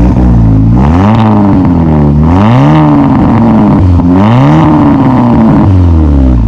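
Chevrolet Cobalt SS four-cylinder engine through a newly installed ZZP exhaust, revved several times with the pitch rising and falling, then settling back to idle near the end.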